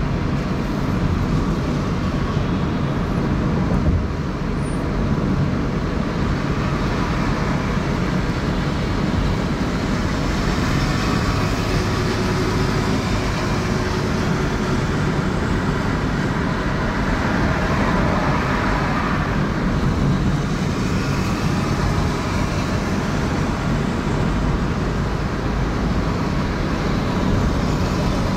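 Steady road noise from a car driving through city traffic: low engine and tyre rumble with the hiss of surrounding vehicles.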